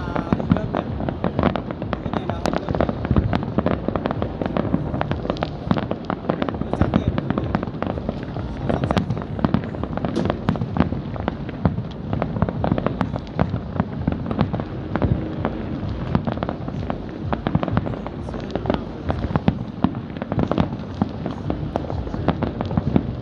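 Fireworks going off in a dense, continuous barrage: many sharp bangs and crackles close together without a pause.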